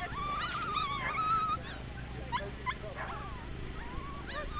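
A dog whining in one long high, wavering whine, then giving a string of short high yips.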